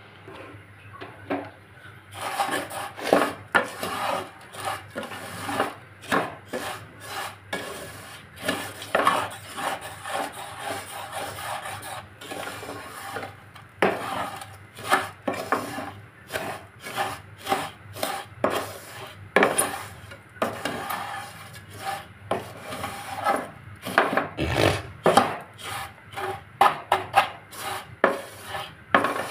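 Dry, toasted vermicelli being stirred and scraped around an aluminium cooking pot with a utensil, in a continuous, irregular run of rubbing, scraping strokes.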